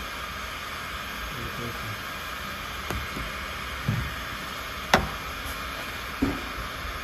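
Four separate knocks over a steady hiss, the third sharp and the loudest: tool or metal knocks during paintless dent repair on a car door.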